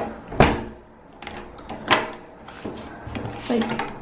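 Old surface-mounted rim lock on a door being worked by its knurled knob, the metal bolt sliding and clacking against its stops: two loud clacks about a second and a half apart, with a few lighter clicks.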